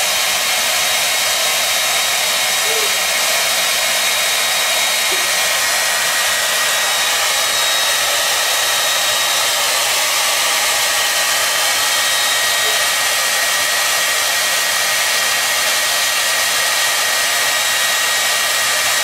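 Handheld hair dryer running steadily: a constant rush of blown air with a faint steady high whine from its motor.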